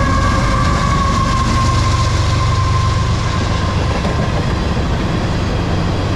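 CSX freight train passing at speed. The lead diesel locomotives, an EMD SD70MAC and a GE ES44AC-H, go by first, and their engine rumble and high whine sag slightly and fade over the first two to three seconds. Then tank cars roll past with steady wheel-on-rail noise.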